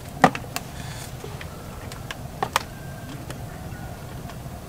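Jars with plastic lids being handled and set down on a wooden table: a series of light knocks and clicks, the loudest about a quarter second in and two close together about two and a half seconds in.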